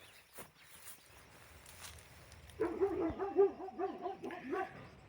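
A dog whimpering in a quick run of short, pitch-bending cries, beginning about halfway in.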